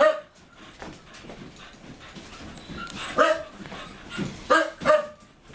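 Keeshond barking in short single barks: one at the start, then three more between about three and five seconds in.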